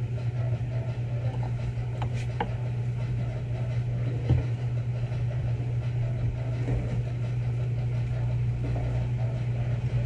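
A steady low machine hum with a few faint clicks.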